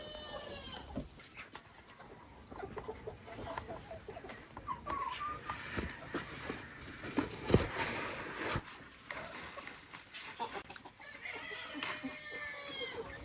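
Chickens clucking, with scattered clicks and a few sharp knocks around the middle, and a long drawn-out call near the end.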